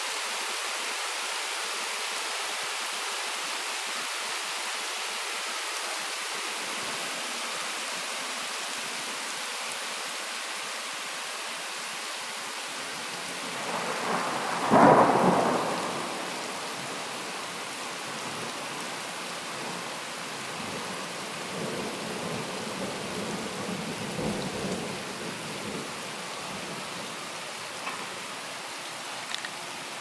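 Steady rain hissing down, with a loud thunderclap about halfway through. A quieter rumble of thunder rolls for a few seconds later on.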